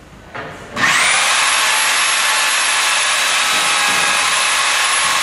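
Electric drive motor of an iTOOLco Cannon 6K wire puller starting about a second in, then running steadily and loudly as it turns the capstan with a rope wrapped around it.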